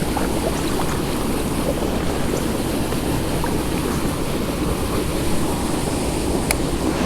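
Steady rush of water from a discharge pipe's outflow current, mixed with wind noise on the microphone.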